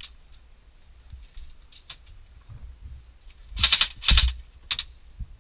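Airsoft gun firing three short, rapid bursts of clicking shots a little past halfway through.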